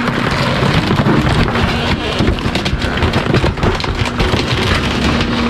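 Heavy truck engine running, a loud steady rumble with a hiss over it.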